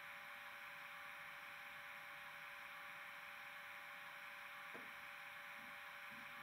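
Faint steady hiss with a low, even hum, and one soft click about three-quarters of the way through.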